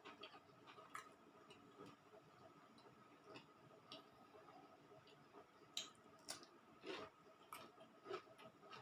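Faint chewing and small mouth clicks of a person eating papaya salad, with scattered soft clicks that come more often and a little louder in the second half.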